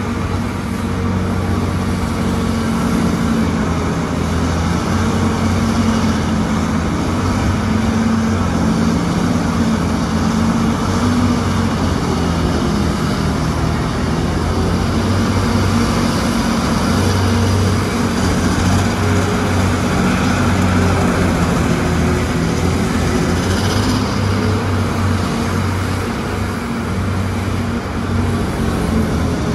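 Terex RH170 mining front shovel running under load as it digs into the rock face, its engines giving a steady low drone.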